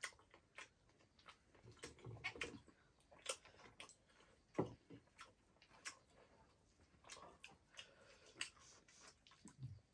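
Faint mouth sounds of people eating pork leg: scattered lip smacks and small clicks of chewing, with a brief low murmur now and then.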